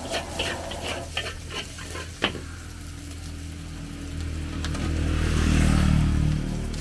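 Metal spatula scraping and clacking against a wok of fried rice for about two seconds, then the rice sizzling on its own over the gas flame. A low rumble swells and fades in the second half.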